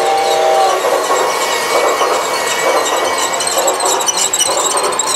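Battery-powered G-scale toy train running past close by, its motor and wheels making a steady whirring rattle on the track. A held electronic tone cuts off in the first second.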